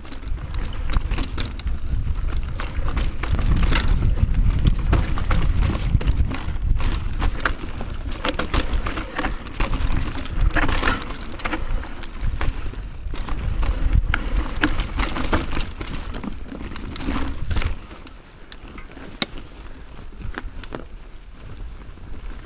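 Mountain bike riding down a rocky trail: wind buffets the camera microphone with a heavy low rumble over constant clicking and rattling from the bike and its tyres on rock and dirt. Near the end the rumble drops away, leaving the lighter rattles and clicks.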